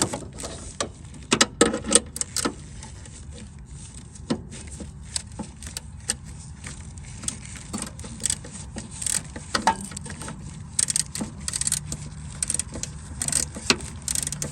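Ratchet wrench working a bolt loose: irregular metal clicks and small rattles. A faint steady low hum comes in about ten seconds in.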